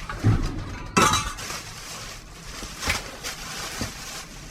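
Rummaging through discarded office junk in a dumpster: objects knocking and shifting, with a sharp knock about a second in and a few fainter ones later.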